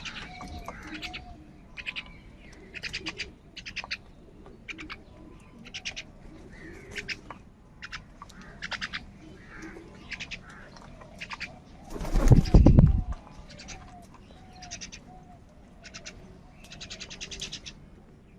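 Several crows cawing over and over, short harsh calls following one another, with faint lower cooing notes behind them. About twelve seconds in, a loud low rumbling burst lasting about a second stands out above the calls.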